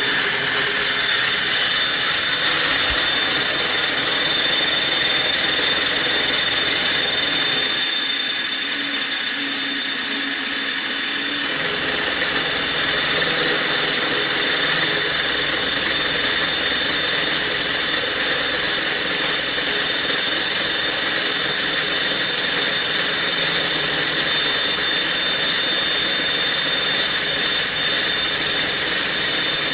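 BF20 CNC milling machine running on its original spindle bearings: a steady mechanical whine with high tones throughout. The low rumble drops away for a few seconds from about eight seconds in, then returns.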